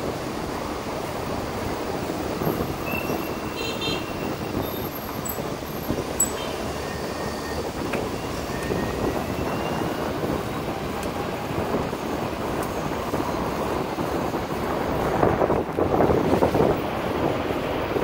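Steady city road traffic noise heard from a moving bike lane, cars and electric scooters passing. A few short high beeps sound about three to six seconds in, and the noise swells briefly near the end.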